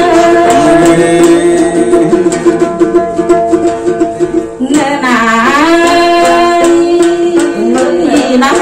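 A woman sings a Thai folk song in long, held notes with a wavering pitch, over a long-necked lute plucked in an even beat. Her voice dips and climbs again about five seconds in.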